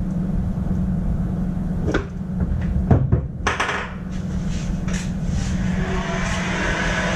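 Steady low workshop hum, with a few sharp clicks and knocks of metal parts being handled at the bench about two, three and five seconds in.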